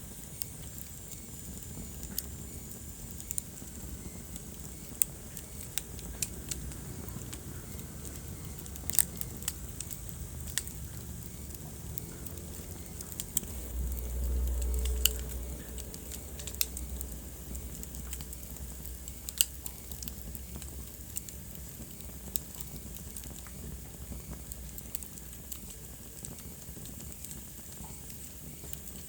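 Wood fire burning in a fireplace, crackling with scattered sharp pops over a steady low rumble. About halfway through, the low rumble swells for a few seconds.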